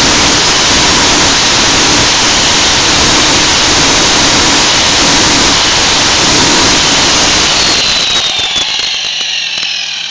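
Large electric angle grinder grinding steel pieces off a go-kart frame: a loud, steady grinding noise. About eight seconds in it comes off the metal and winds down with a falling whine.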